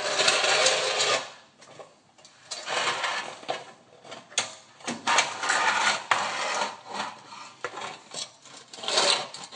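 Close scraping and rubbing noise in bursts of about a second, with scattered clicks: the phone camera being handled and brushed against car parts and plastic in a tight space.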